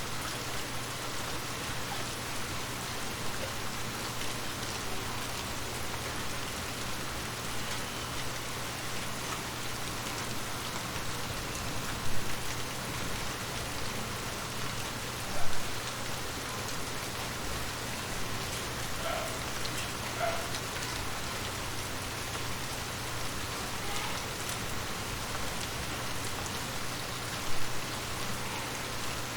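Steady rain falling, an even hiss of drops, with three brief louder knocks along the way.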